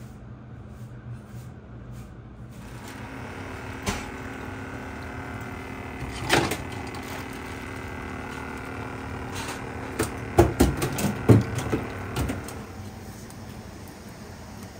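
Kitchen handling of live prawns at a steel sink: scattered knocks and clatters, the loudest in a quick cluster about two-thirds of the way through. Under them runs a steady machine hum that starts a couple of seconds in and stops near the end.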